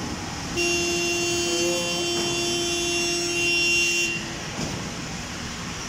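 A long, steady horn blast starts about half a second in and lasts some three and a half seconds. It sounds over the steady running of heavy machinery at a concrete pour.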